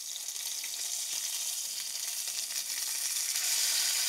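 Swordfish steak sizzling in hot oil in a nonstick frying pan, a steady crackling hiss that grows louder near the end as the steak is lifted with a spatula. The fish is searing over medium heat to build a crust.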